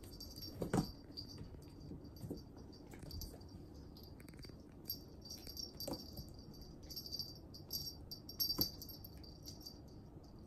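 A kitten's collar jingling on and off as it moves and tussles, with a few soft thumps from the cats' paws and bodies on the tabletop, the loudest near the start and another late on.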